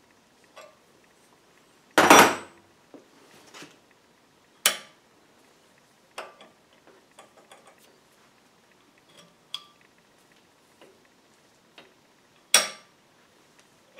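Steel parts and hand tools clinking and clacking against the lathe headstock as a spring-plunger indexing pin on a steel bar is set against the bull gear: a loud ringing clank about two seconds in, another sharp clack near five seconds, a third near the end, and light taps between.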